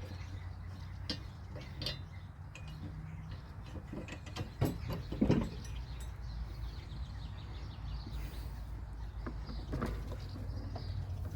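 Scattered clicks and clinks of hand tools and metal parts being handled while a lawnmower is taken apart, with two louder knocks near the middle, over a steady low hum.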